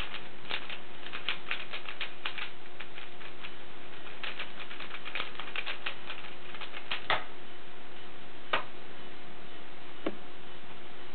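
A 3x3 Rubik's cube turned fast through speedsolving algorithms, its plastic layers clicking in quick runs for about seven seconds. A sharp knock follows as the laptop timer is stopped, then a couple of single taps, over a faint steady hum.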